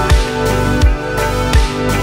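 Background music with a beat of percussive hits over a bass line and sustained pitched notes.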